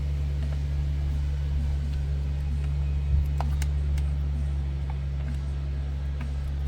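A steady low mechanical hum, with a few faint clicks of a wrench tightening the chainsaw's bar nuts a few seconds in.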